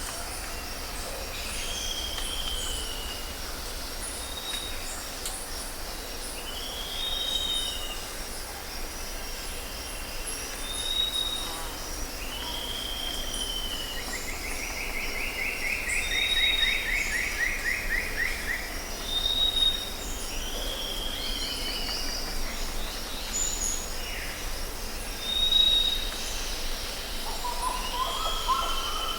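Several songbirds calling: a slurred whistle repeated every few seconds, short high whistles between them, and a buzzy trill about halfway through, over a steady low rumble.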